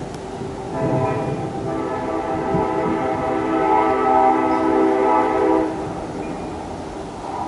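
Train horn blowing one long chord of several steady notes, starting about a second in and cutting off near six seconds, over the steady noise of a thunderstorm's rain and wind.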